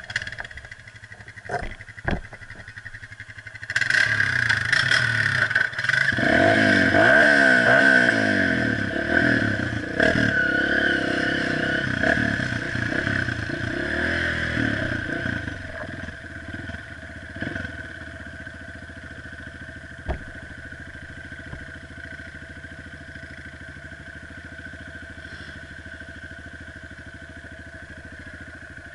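Honda CRF230F dirt bike's single-cylinder four-stroke engine. A few knocks come over a low engine note, then about four seconds in it revs hard under acceleration, its pitch rising and falling with the throttle. After about sixteen seconds it settles to a steadier, quieter running note.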